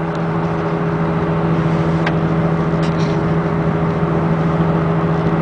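2002 VW Beetle TDI cruising at highway speed, heard from inside the cabin: a steady low drone over tyre and road noise. The drone comes from a worn passenger-side front wheel bearing and grows louder with road speed.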